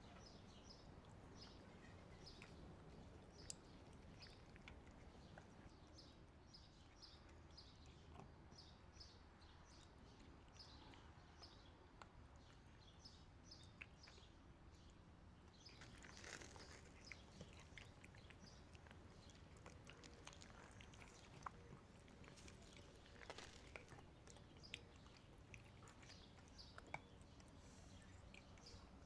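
Faint, repeated high chirps from a small bird, about two a second, against a quiet background. About halfway through the chirping gives way to scattered faint clicks and ticks.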